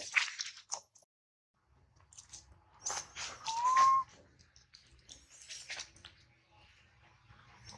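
A baby macaque gives one short, rising whistle-like coo about three and a half seconds in, over scattered crackling and rustling.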